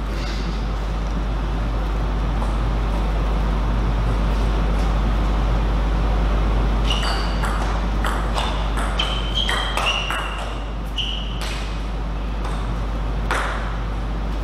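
Table tennis rally: the ball clicks quickly back and forth off the paddles and the table, each hit with a short pinging ring. It starts about seven seconds in and ends about a second before the end, over a steady low hum.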